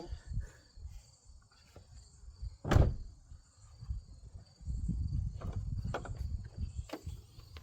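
A single sharp thump about three seconds in, then low rumbling with a few lighter knocks in the last few seconds, as an antique lathe's base is set down and shifted in the back of a Jeep.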